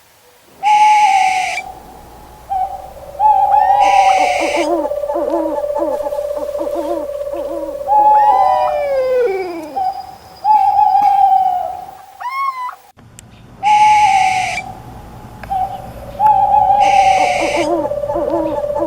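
Owls hooting: repeated falling hoots with lower calls beneath, broken every few seconds by a short, harsh, high-pitched call. The sound drops out briefly about twelve seconds in, then the same pattern starts again.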